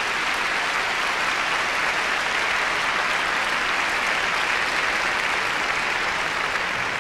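Large concert-hall audience applauding, a dense, even clapping held steady throughout.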